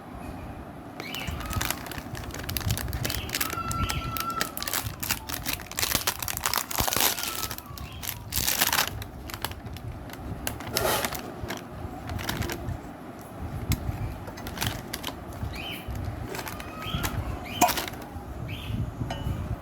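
Irregular handling noise, rustling and light clicks, with a few short high bird chirps now and then.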